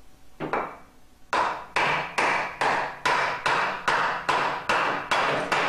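Cushioned hammer blows on the rear of a 4L60 automatic transmission's output shaft: one light tap, then a steady run of about a dozen sharp blows, two to three a second. The blows drive the shaft up through the case to break the low and reverse roller clutch assembly loose from its anti-clunk spring.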